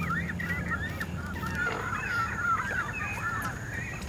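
Neotropic cormorants calling at their nesting colony: a continuous chatter of many short, overlapping squawks.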